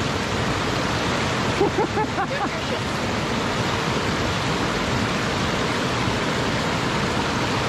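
Shallow, fast creek rushing steadily over rocks.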